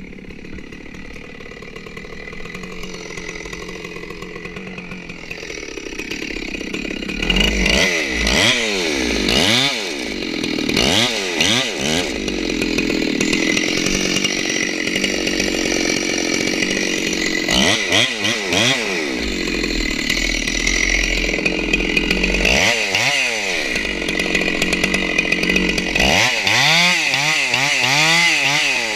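Stihl 064 two-stroke chainsaw running quietly at first, then from about seven seconds in at full throttle, cutting into a redwood trunk, its revs swinging up and down under load.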